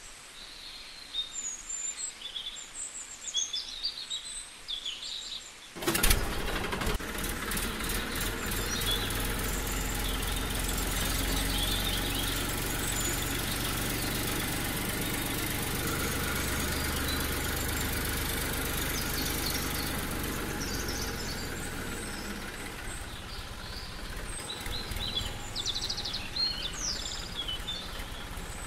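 Birds chirping. About six seconds in, a steady whirring hum starts: the small electric motor of a homemade cardboard toy tractor driving, with birds still chirping over it.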